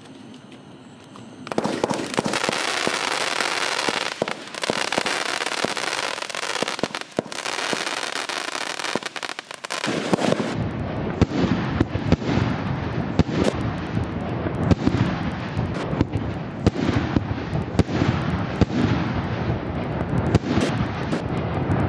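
Wolff 'Insanity' 200-shot compound fireworks battery firing, starting about a second and a half in. First comes a dense, hissing rush of rapid shots; from about ten seconds in it gives way to a fast run of deeper, sharper bangs.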